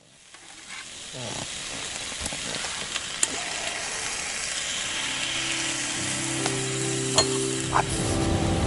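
Steady rain hiss fading in and growing louder, with a few low steady tones joining about five seconds in.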